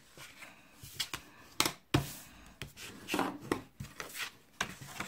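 A bone folder is drawn firmly along the scored fold lines of white cardstock, forwards and backwards, to sharpen the creases. The paper rubs and swishes, with several sharp taps on the cutting mat.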